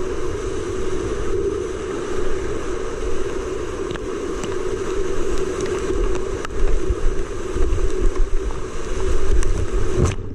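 Whitewater rapids on a creek running high, a steady rushing roar close to the microphone, with a few sharp knocks. From about six seconds in, water splashes over the camera and buffets the microphone in heavy thumps, then the sound cuts off abruptly at the very end.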